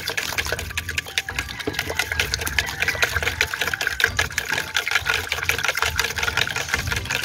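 A plastic fork stirring quickly in a plastic pitcher of hydroponic nutrient solution: a fast, continuous run of scraping ticks against the pitcher with liquid sloshing, as the fertilizer dissolves with a few lumps still left.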